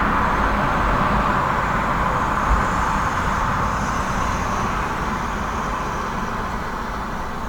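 Road traffic on a busy street: the steady noise of tyres and engines of passing cars, slowly fading through the second half.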